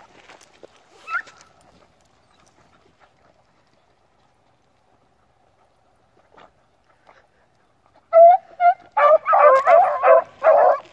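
An animal calling in a quick run of short, wavering, high cries that start about eight seconds in, after a mostly quiet stretch broken by one brief rising cry about a second in.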